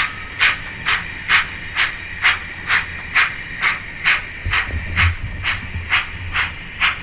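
Sound-fitted model steam locomotive's decoder playing a steady steam exhaust chuff, about two beats a second, over a continuous hiss, heard through the model's small onboard speaker. A low rumble comes in about halfway through.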